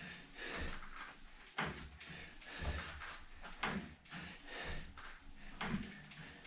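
Resistance pull cords and their anchor knocking and rattling with each front crawl arm stroke, in irregular bursts about once a second.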